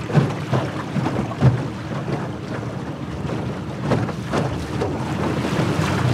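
Jon boat under way on choppy lake water: a steady low motor hum under wind buffeting the microphone, with a few sharp knocks and gusts.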